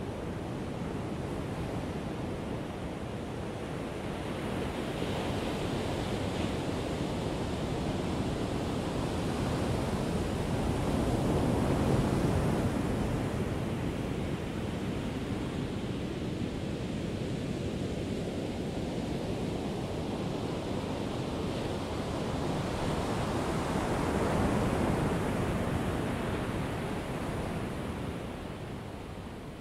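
Ocean surf: a steady wash of waves that swells twice, about halfway through and again near the end.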